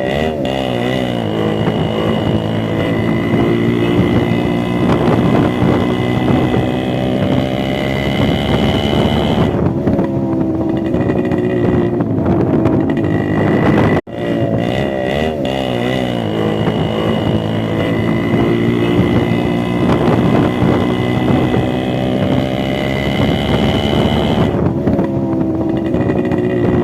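Yamaha RX135 two-stroke single-cylinder motorcycle with a modified exhaust, blipping the throttle up and down and then running at steady revs. The same stretch of revving plays twice, with a brief cut in the middle.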